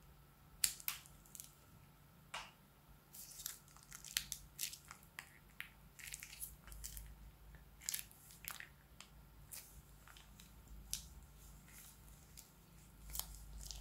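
Scissors snip the tip of a plastic piping bag about a second in. Then slime is squeezed out of the bag into a bowl with irregular sticky crackles and pops.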